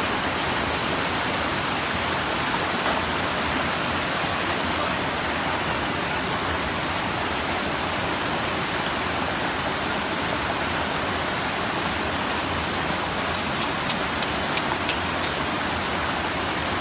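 Steady, loud rush of water, an even noise with no rhythm, with a few faint clicks near the end.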